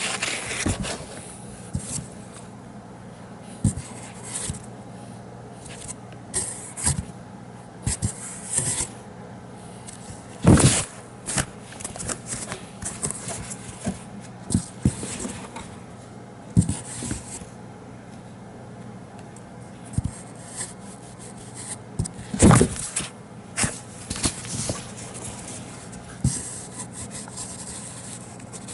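Persian kitten scratching and scraping at a cardboard box from inside, in irregular bouts of rubbing and bumps, with two louder knocks about ten and twenty-two seconds in.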